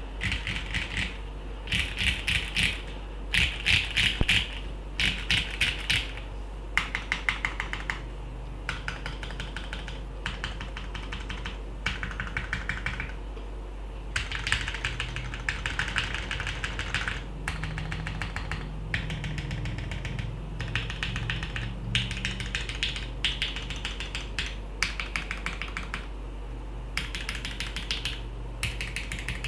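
Typing on an Eun60 acrylic gasket-mount mechanical keyboard with lubed Gateron Milky Black linear switches on a polycarbonate plate. The keystrokes come in quick bursts of rapid clicking with short pauses between.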